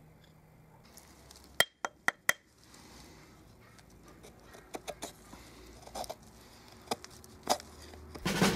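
Four sharp metallic clinks in quick succession about a second and a half in, then a knife blade cutting shavings from a wooden stick in separate short strokes. Music comes in just before the end.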